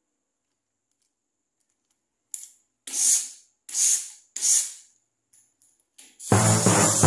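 Toy Thomas train pushed by hand across a paper sheet: starting about two seconds in, a click, then three short scraping swishes about two-thirds of a second apart and a few faint clicks. Music starts loudly near the end.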